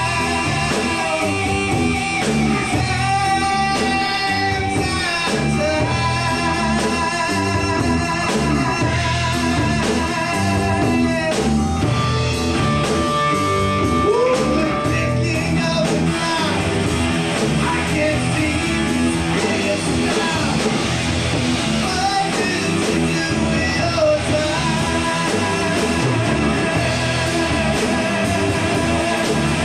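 Live rock band playing: electric guitar with held, wavering notes over bass guitar and drum kit.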